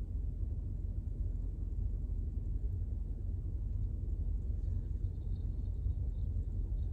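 Steady low rumble inside a car's cabin, with no other clear event.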